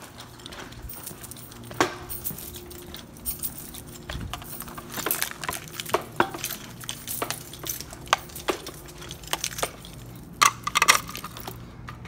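Footsteps on a hard tile floor, irregular sharp steps with light metallic clinking and jingling among them, over a steady low hum.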